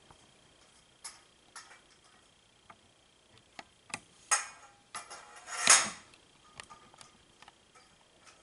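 Metal frame poles and connector fittings clinking and knocking as the poles are pushed into the fittings and handled on carpet: a string of light clicks, with louder clanks a little after four and near six seconds in.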